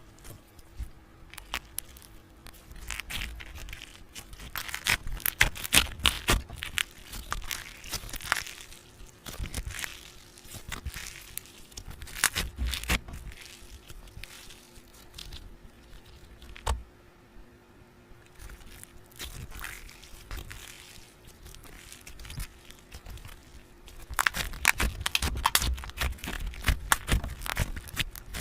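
Close-up crinkling, crackling and tearing sounds in irregular bursts, over a faint steady hum.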